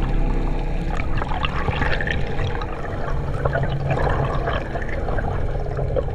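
Bubbling, churning water heard with the microphone underwater beside a jet ski's hull, over a steady low hum.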